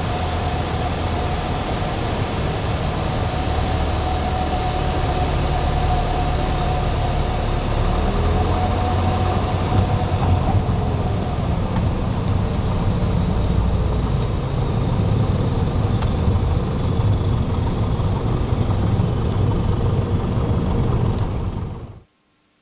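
Piper Cherokee 180's four-cylinder Lycoming engine and propeller running steadily, heard inside the cabin with a hiss of air and rolling noise over the engine's low drone. It cuts off abruptly near the end.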